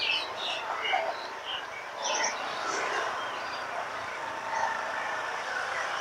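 Many caged songbirds chirping, with short scattered calls, over a motor scooter running and street noise.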